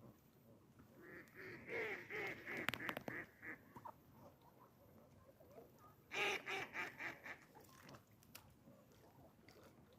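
Duck quacking in two runs of rapid calls: the first about a second in, lasting a couple of seconds, the second about six seconds in and shorter.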